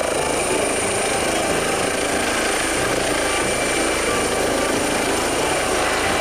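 Air ambulance helicopter lifting off and climbing, its rotor and turbines at flight power: a steady, loud rotor noise with a constant high-pitched turbine whine.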